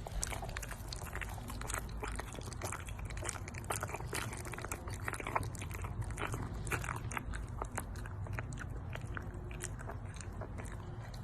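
An animal chewing and crunching food close to the microphone, with many sharp crunches throughout over a low steady hum.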